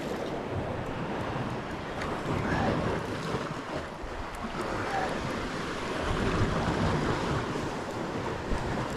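Sea waves washing against a rocky shore, with wind gusting on the microphone.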